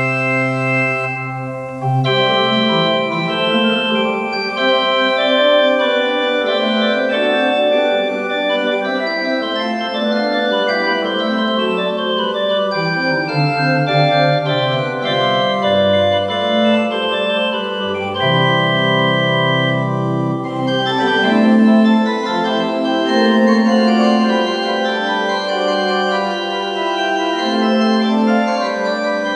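Two-manual church organ playing a Baroque piece in several voices, with sustained chords over a pedal bass line.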